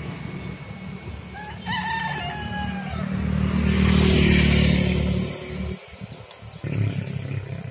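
A rooster crows once, a falling call of about a second and a half, over a steady low rumble. Then a louder rushing noise swells and drops off sharply about two-thirds of the way through.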